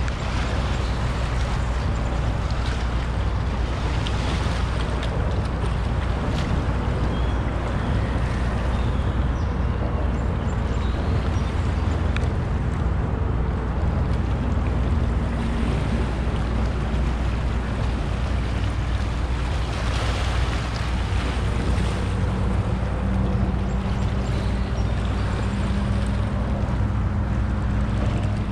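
Steady low rumble of traffic on the Throgs Neck Bridge approach overhead, mixed with small waves washing over the rocky shore and wind on the microphone. A low, steady engine hum joins about three-quarters of the way through.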